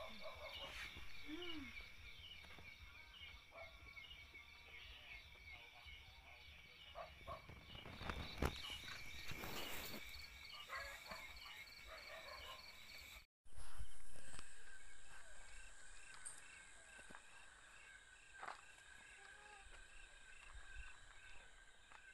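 Night chorus of crickets chirping in steady, evenly repeated high pulses. Scattered scuffs and knocks sound through it. The sound cuts out for a moment partway through and returns with a sudden louder noise that fades over a few seconds.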